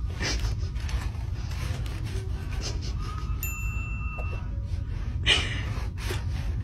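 Steady low room rumble with a single clear ding, held about a second, beginning about three and a half seconds in. A short breathy sound comes just after the start and a louder one about five seconds in.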